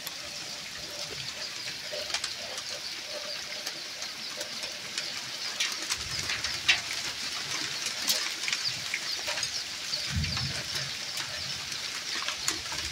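Heavy rain with hail falling on bare ground: a dense steady hiss with many sharp ticks of individual hailstones striking.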